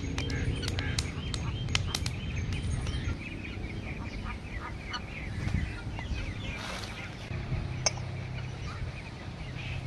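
Wood fire crackling in a pit tandoor, a quick run of sharp pops for about the first three seconds. Birds chirp throughout over a steady low rumble, and a single sharp click comes near the end.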